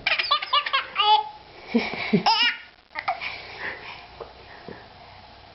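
A young child's high-pitched laughter in quick bursts over the first second, then a longer wavering laugh a little after two seconds in, fading to quieter sounds.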